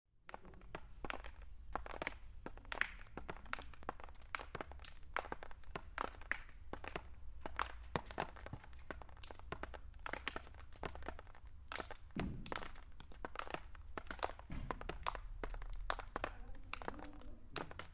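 Faint, irregular crackling and clicking, many sharp ticks a second, over a low hum, with a dull thump about twelve seconds in.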